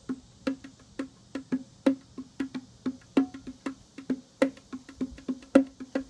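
Bongos struck by hand in a quick, uneven rhythm of about three hits a second, with a steady high drone of cicadas behind.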